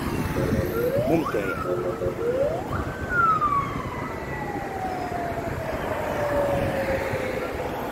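Emergency vehicle siren sounding in whoops, each rising quickly and falling away. The last one, about three seconds in, winds slowly down over several seconds.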